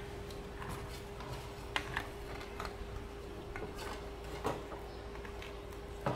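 Handling noise from a solar lamp being reassembled: scattered light clicks and knocks as the LED board and a blue battery pack are moved about in the round lamp housing, the sharpest knock near the end. A steady faint hum runs underneath.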